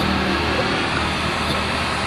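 Yamaha 15 hp outboard motor running steadily at a constant speed.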